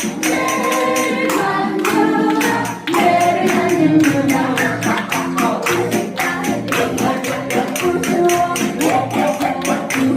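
Spoon percussion: spoons clacked in a quick, steady rhythm along with a sung trot song.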